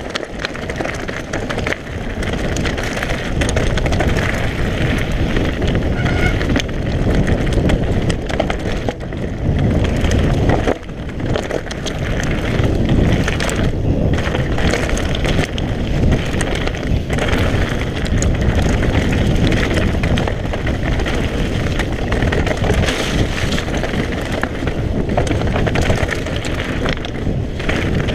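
Mountain bike being ridden along a trail, heard from a camera on the rider: wind rushing over the microphone with the tyres and the rattle and knocks of the bike over rough ground, briefly easing about a third of the way in.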